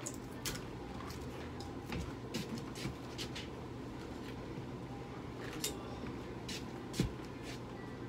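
Scattered light clicks and knocks of equipment being handled, over a steady electrical hum, with one louder knock about seven seconds in.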